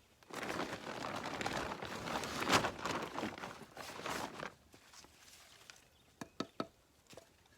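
Rustling and scraping of scrap debris being handled for about four seconds, then three quick sharp knocks.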